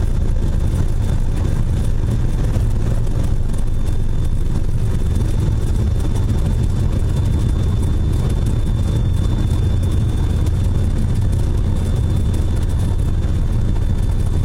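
Cessna 206's piston engine and propeller running steadily, heard inside the cabin as a loud, unchanging low drone, with a faint steady high tone above it.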